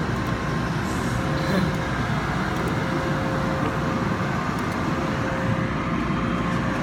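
Coleman Hanna car wash tunnel equipment running: a steady rush of water spray and machinery noise, with a faint steady hum underneath.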